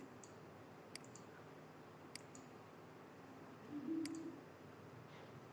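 Faint computer mouse clicks: four sharp clicks about a second apart, some followed closely by a softer release click, with a brief low hum just before the last.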